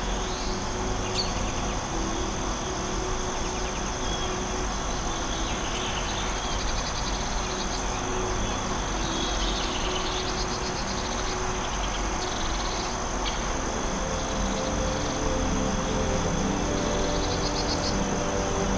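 Forest ambience: a steady high-pitched insect drone, with short trilling calls every second or two over a steady even hiss.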